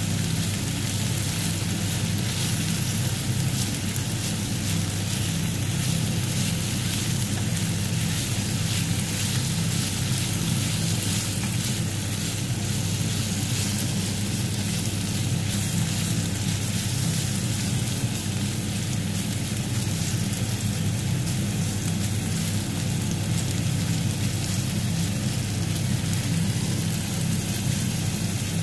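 Chicken tocino sizzling steadily as it fries in a nonstick pan, turned now and then with a spatula, over a steady low hum.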